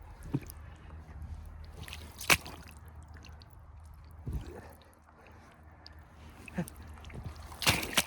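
Muck Arctic rubber boots squelching and sucking in soft peat bog mud: about five separate wet squelches a second or two apart, the loudest a couple of seconds in and near the end, over a low steady rumble.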